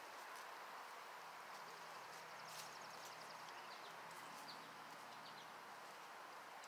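Faint outdoor background: a steady hiss with a few short, high bird chirps and a quick run of small ticks in the middle.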